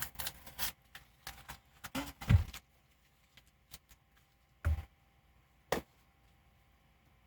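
Workshop handling noises: a run of short clicks and rustles, a knock about two seconds in, then two single thuds about a second apart.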